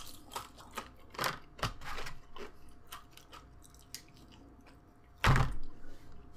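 Close-miked chewing of a crunchy tortilla chip: a run of crisp crunches over the first few seconds, then quieter chewing. A single dull thump about five seconds in is the loudest sound.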